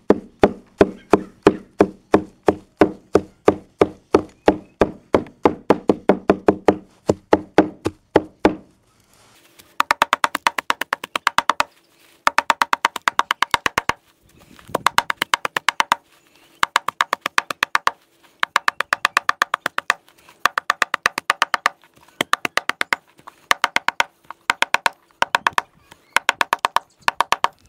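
Cleaver blade chopping fresh grass and weeds against the ground. It starts as steady knocks about three a second, then after a short pause turns into fast runs of rapid chops, several a second, broken by brief pauses.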